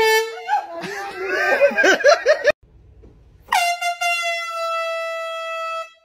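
Air horn blasting: a short blast at the start, followed by a person crying out loudly, then about three and a half seconds in a second, longer steady blast of over two seconds whose pitch sags slightly before it stops.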